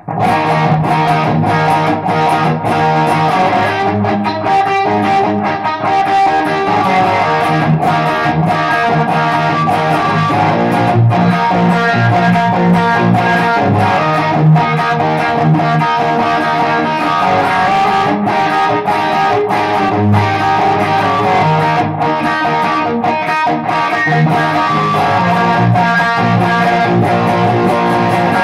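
Electric guitar played as a continuous instrumental passage, with sustained low notes under higher chords; it starts suddenly right at the outset.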